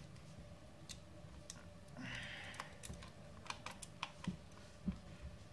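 Faint small clicks and taps of a DSLR being handled and unscrewed from a metal mini tripod's mount, with a brief rustle about two seconds in and a few soft thumps near the end.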